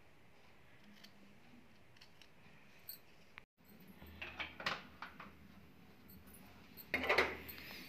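Faint room tone, then a gas burner's low steady hum with two short bursts of clicking and crackling as cooking oil is poured from a bottle into a steel kadhai. The louder burst comes near the end.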